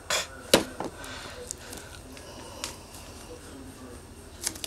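Shrink-wrapped cardboard box being handled and turned over in the hands: one sharp tap about half a second in, then faint handling noise with a couple of light taps near the middle and end.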